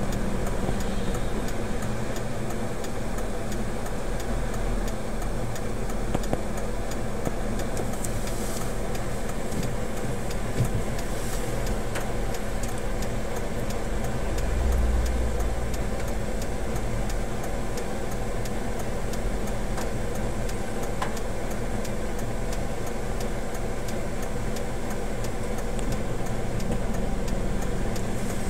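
Car running, heard from inside the vehicle: a steady hum of engine and road noise, with a low rumble that swells briefly about fifteen seconds in.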